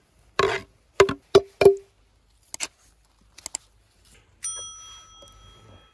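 A few sharp knocks, each with a brief ring, then some small clicks, then a single bell ding about four and a half seconds in that rings on for over a second. It is a YouTube subscribe-button notification sound effect.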